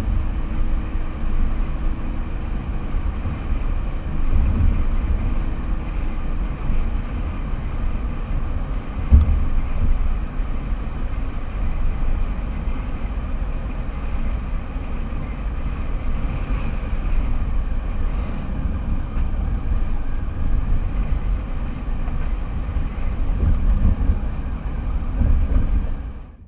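Car driving, heard through a car-mounted camera: a steady low rumble of road and wind noise, with a short thump about nine seconds in.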